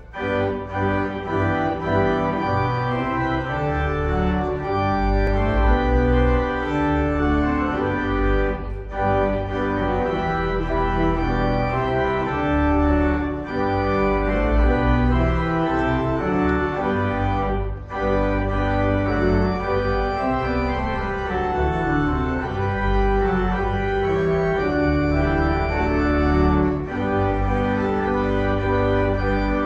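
Organ music: full sustained chords over deep bass notes, with short breaks between phrases about nine and eighteen seconds in.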